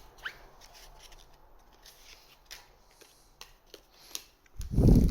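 Trading cards being handled and slid against one another while being sorted: faint rubbing with a few soft clicks. A short, louder low hum comes near the end.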